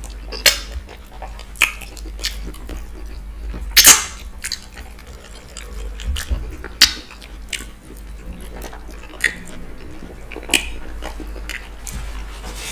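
Eating sounds of fufu with slimy ogbono and okra soup eaten by hand: wet lip smacks, clicks and chewing, about one every second, the loudest about four seconds in.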